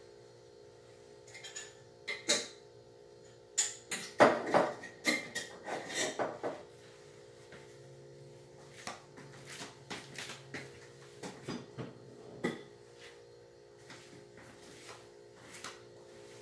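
Kitchenware clattering: a busy run of knocks and clinks of dishes and utensils from about two to six seconds in, then scattered lighter knocks, over a faint steady hum.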